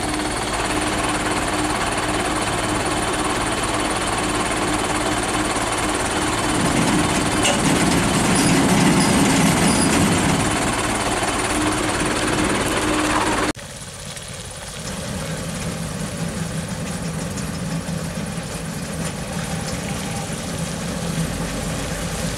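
Truck engines running steadily, swelling louder for a few seconds about seven seconds in. After an abrupt cut about thirteen seconds in, a quieter engine idles.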